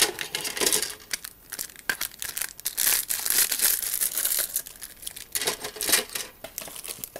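Clear plastic bags around plastic model-kit sprues crinkling and rustling as they are handled, in irregular crackly bursts with small sharp ticks.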